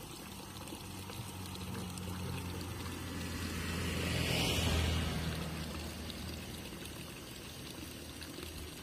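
A motorbike passing on the nearby road: its engine grows louder to a peak about four and a half seconds in, then fades away.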